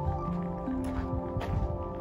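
Background music: held notes that step from one pitch to another over light percussive hits.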